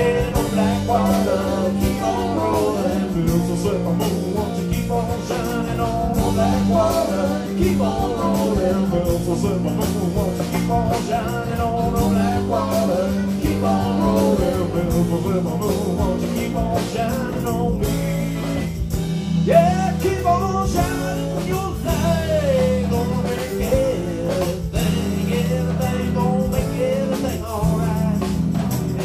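A live rock band playing with drums, keyboard, guitar and a singer.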